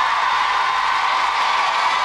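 Studio audience applauding and cheering: a steady, even wash of clapping and cheers.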